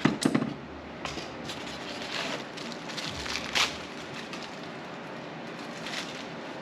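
Spindle sander parts and their packaging being handled. There are a few knocks just at the start, crinkling rustle a couple of seconds in, and a sharp click a little past halfway, over a steady background hum.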